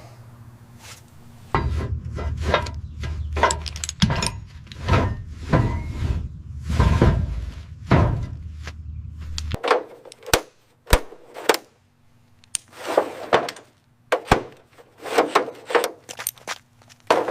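Hand-tool work: a run of irregular knocks, clatters and scrapes. A low hum runs underneath and cuts off a little past halfway.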